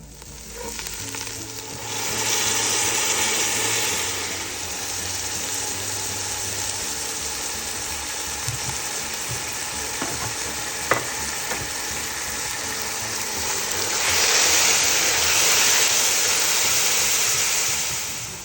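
Food sizzling in hot oil in a cooking pot, a steady frying hiss that swells louder twice, about two seconds in and again near the end, with a couple of light taps near the middle.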